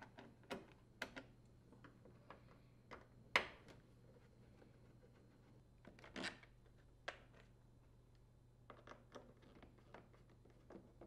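Faint, scattered clicks and ticks of a T15 Torx screwdriver working screws out of a dishwasher's door panels, with one louder click about three and a half seconds in. A low hum sits underneath.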